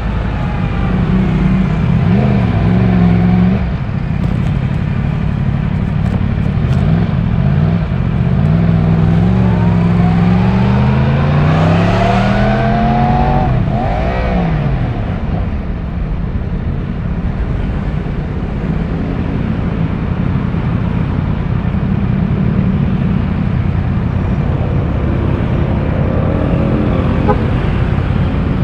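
Yamaha YZF-R1's 1000cc inline-four on its stock exhaust, revving up and dropping back several times as the bike accelerates through the gears. In the second half the engine settles into steady riding under a wash of road and wind noise.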